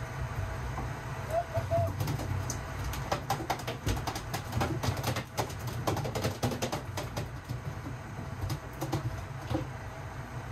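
Steady low rumble of a fishing boat's engine and hull, with a run of sharp clicks and knocks from deck gear being handled, thickest in the middle and tapering off near the end.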